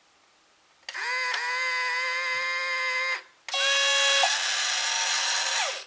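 Small electric motors of a 1/32 Aoshima R/C bus model running as its doors close: a steady whine that slides up to pitch about a second in and stops near three seconds, then a second, noisier run with a brief tone at its start, sliding down in pitch as it winds down near the end.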